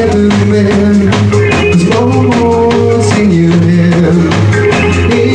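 Rock band playing live: electric guitars, bass guitar and drum kit, with a steady drum beat under sustained guitar notes and a moving bass line.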